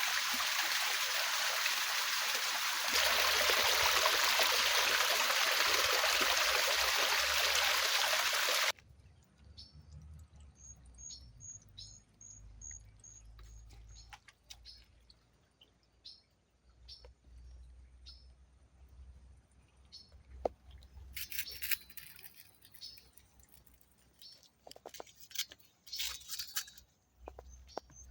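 Rushing river water, which gets louder about three seconds in and cuts off abruptly about nine seconds in. Then the quieter rainforest: small birds chirping, including a quick run of high repeated notes, with scattered rustles and clicks.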